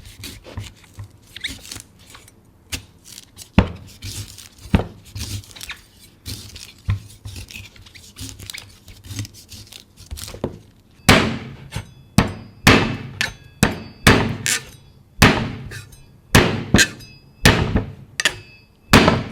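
Knife chopping into a coconut: light scattered taps and scrapes at first, then, from about halfway, a run of sharp, loud chops at about two a second.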